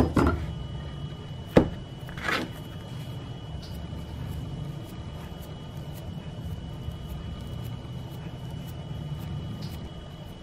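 A couple of sharp knocks about a second and a half apart, then a brief scrape, as a small fluted metal tart tin lined with pie dough is handled on a silicone mat. A steady low hum runs underneath.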